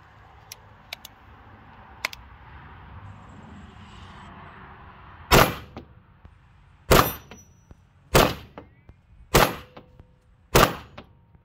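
Five single shots from a .223 AR-15 rifle, fired at an even pace about a second and a quarter apart starting about five seconds in. Each shot is followed by a faint ping of the bullet striking a steel target. A few light clicks of handling the rifle come first.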